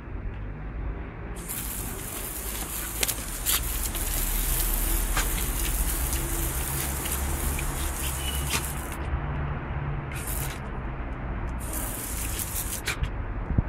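Water jet from a garden hose spray nozzle hissing and splattering on patio tiles and a dog's paws. It starts a little after the beginning, runs for several seconds, then goes on and off in short spells.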